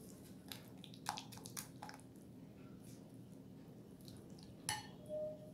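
Silicone spatula stirring a soft cheese-and-yogurt cheesecake mixture in a glass bowl: faint squishing, with a few light clicks of the spatula against the glass about a second in and again near the end, and a brief squeak just before the end.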